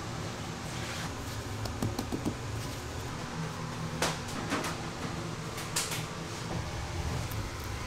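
Steady hum of kitchen ventilation with a few light clicks and taps, about four seconds in and again near six seconds, as rounds of donut dough are set down on stacked metal wire racks.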